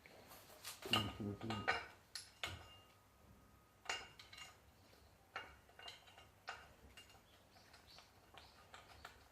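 Steel differential parts and hand tools being handled and set down: irregular light metallic clinks and knocks, some with a brief ring.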